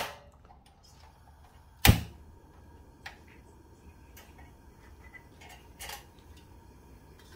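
Sharp clicks from handling a portable gas stove and a stainless steel mess tin: one loud click about two seconds in, then a few small taps and clinks as the pot's folding wire handle is moved.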